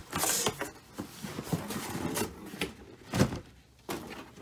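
Cardboard sneaker box being handled and opened: scraping and rustling of the box and lid, with a dull knock about three seconds in.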